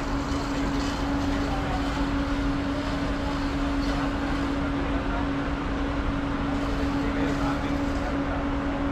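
Ferry's machinery running steadily on the vehicle deck: a constant low hum with an even rumbling noise around it, unchanging throughout.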